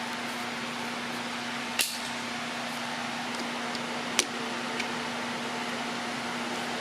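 Steady mechanical hum and hiss, with a sharp click about two seconds in and another about four seconds in.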